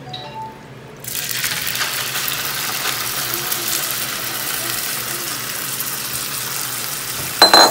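Flaked canned tuna dropped into hot oil in a nonstick frying pan, setting off a steady sizzle that starts suddenly about a second in. Near the end comes a brief sharp clink with a ringing tone, the loudest moment.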